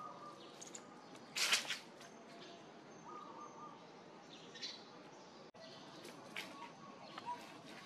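Outdoor background with faint scattered chirps and a brief harsh noisy burst about a second and a half in.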